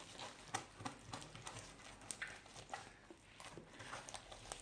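Homemade slime being handled, with faint, irregular sticky clicks and small taps.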